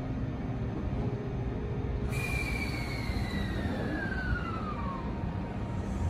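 Electric commuter train at a station: over a steady low rumble, a whine comes in about two seconds in and falls smoothly in pitch for about three seconds, the sound of a train's traction motors slowing.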